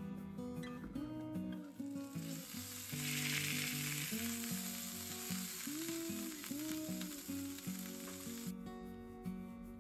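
A string-tied meat roll searing in hot oil in a frying pan, a steady sizzle that comes in about two seconds in and cuts off about a second before the end, over soft acoustic guitar music.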